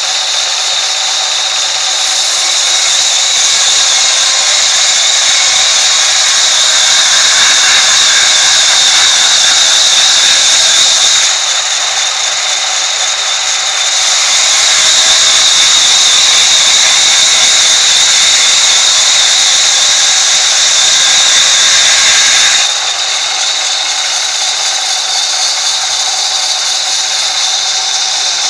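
Sawmill band saw running with a steady high whine while its blade rips lengthwise through a log. The cutting noise is louder over two long stretches, easing for a few seconds around twelve seconds in and dropping back to the saw running lighter after about twenty-two seconds.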